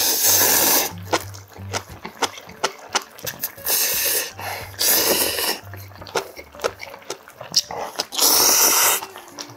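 A man slurping instant ramen noodles up from a bowl, four long loud slurps, with short wet chewing clicks between them. Soft background music with a steady low beat runs underneath.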